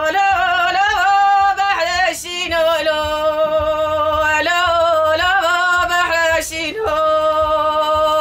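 A woman singing dengbêj, the unaccompanied Kurdish sung storytelling: one voice holding long notes with a wavering pitch, linked by quick ornamented turns.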